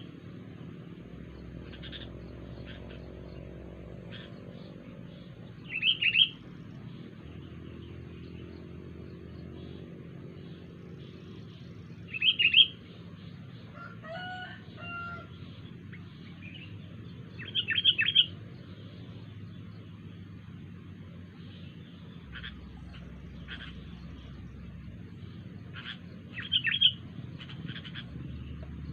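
Sooty-headed bulbul (kutilang) giving short, loud calls about every six seconds, with fainter chirps in between and one different pitched call about halfway through. A steady low hum runs underneath.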